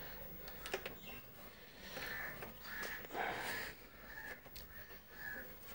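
Light clicks and taps of wires and connectors being handled and fitted into a UPS, with several short, harsh bird calls in the background from about two seconds in.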